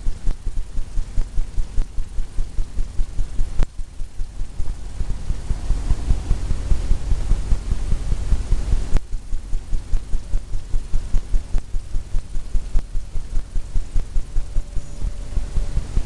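Fan brush tapping on a stretched canvas: a steady run of soft, low thumps at about three or four a second, which drum on the canvas.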